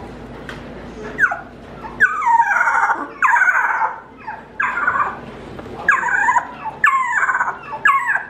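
Juvenile mantled howler monkey's early attempts at howling: a run of about seven high calls, each sliding down in pitch, starting about a second in and coming roughly once a second.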